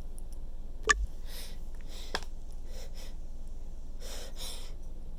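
A person's short, catching breaths as a sneeze builds, several soft hissy inhalations spread over the seconds, with a sharp click about a second in and a fainter one about two seconds in.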